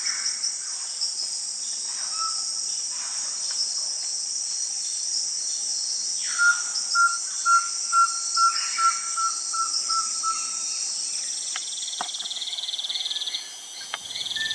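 Rainforest insect chorus, a steady high-pitched shrill drone of cicadas and katydids. In the middle a bird gives a series of about nine evenly spaced whistled notes, about two a second, and near the end a lower, rapidly pulsing insect trill comes in.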